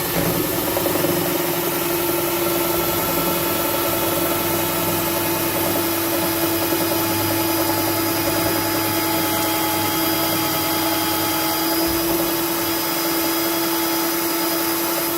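Power drill running steadily in reverse with a screw extractor bit, backing out a stripped security screw. It is a constant motor whine that holds one pitch throughout.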